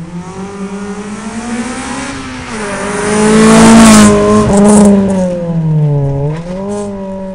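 Rally car engine revving hard as the car passes at speed, loudest about halfway through. The pitch drops sharply at gear changes about two and a half and six seconds in, then the sound fades as the car goes away.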